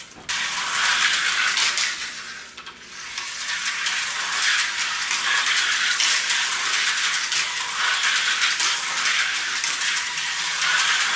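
1984 Tyco slot car running laps on the plastic track. Its small electric motor whirs with a steady rattle, starting a moment after the car is set back in the slot and dipping briefly about two and a half seconds in.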